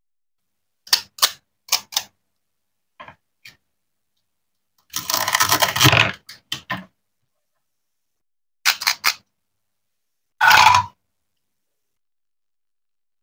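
Toy plastic knife and plastic toy broccoli on a wooden cutting board: a few sharp clicks and taps, then a dense scratchy sound lasting about a second, about five seconds in, as the halves are cut apart. More clicks follow, and a shorter scratchy burst comes near the end.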